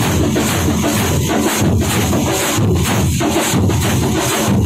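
A Thampola (thambolam) percussion troupe: many drums beaten with sticks together in a loud, dense, unbroken rhythm.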